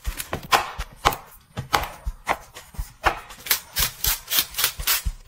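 Close-up sounds of raw chicken being handled and prepared: a quick, irregular run of sharp knocks and crinkles, several a second, coming faster about three seconds in.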